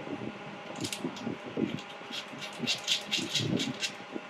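Foot-switch cable and plug being handled and pushed into the laser welder's socket: a run of small clicks and rattles over a steady background hum.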